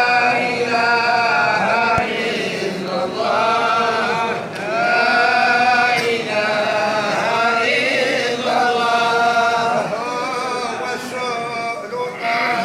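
A group of men chanting Sufi madih (praise poetry) together, unaccompanied, in drawn-out phrases of a second or two with brief breaths between them.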